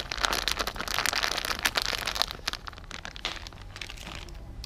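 Thin clear plastic bag crinkling and rustling in the hands as sliced garlic is shaken out of it into a pot. The crinkling is dense for about two and a half seconds, then thins to a few light rustles and stops near the end.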